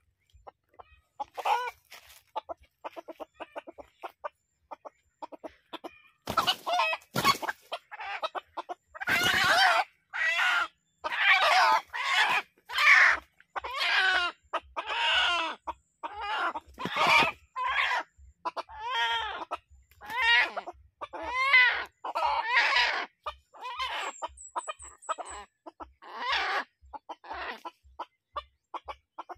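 A trapped rooster, a domestic chicken crossed with red junglefowl, squawking in alarm as it is grabbed and handled. After a few quiet seconds of faint rustling, loud harsh calls repeat about once a second.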